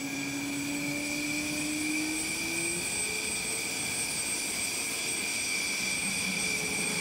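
Dassault Rafale fighter's jet engines running while the jet stands stopped on its brakes: a steady high whine over a rush of exhaust noise, with a lower tone rising slightly in the first few seconds.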